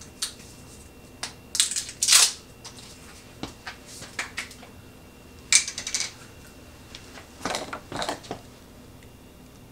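Kitchen handling noises as ingredients are measured out: measuring cups and ingredient containers clicking and rustling on a countertop, in three short clusters, about one and a half, five and a half and seven and a half seconds in.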